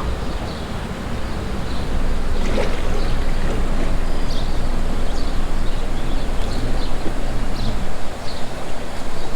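Steady rushing of water with wind buffeting the microphone, dense and low, with faint high chirps over it.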